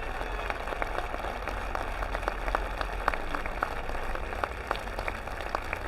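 Large crowd applauding: a steady run of many separate hand claps over a low rumble.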